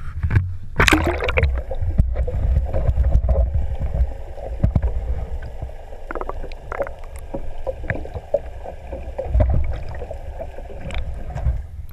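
A splash about a second in as the camera plunges into the sea, then muffled underwater sound: water rushing and knocking against the camera housing, under a steady hum that stops as the camera comes out near the end.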